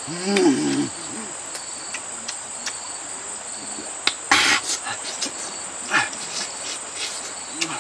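A man eating a whole roasted bird with his hands: a short hummed vocal sound near the start, then a burst of tearing and crunching of the meat about four seconds in and a few small clicks of chewing. Under it all, a steady high-pitched drone of insects.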